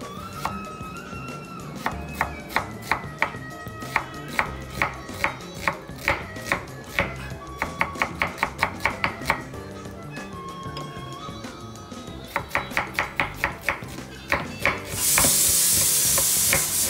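Kitchen knife slicing a red onion on a wooden cutting board: quick, even knocks of the blade on the board, a few strokes a second, in two runs. Near the end a pressure cooker lets out its first whistle, a loud hiss of steam lasting about two seconds, the sign that the mutton inside has come up to pressure.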